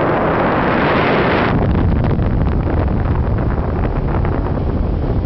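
Wind rushing over the camera microphone during a tandem paraglider flight: a loud hissing rush for about the first second and a half, then a lower, gusty rumble.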